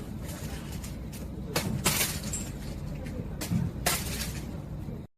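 A few sharp knocks or clatters over a steady background rumble, cutting off abruptly near the end.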